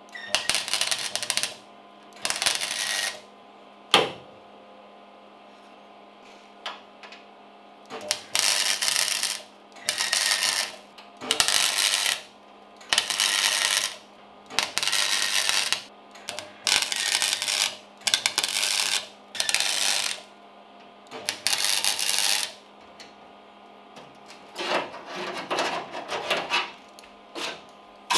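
MIG welder stitch-welding a new sheet-steel repair panel into a car's rear wheel arch: about a dozen short crackling bursts, each around a second long, with pauses between them. A steady low hum runs underneath, and there is one sharp click about four seconds in.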